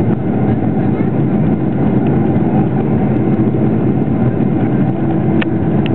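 Steady cabin noise of a Boeing 747-400 climbing after takeoff: jet engine and airflow noise heard from inside the cabin over the wing, with two brief clicks near the end.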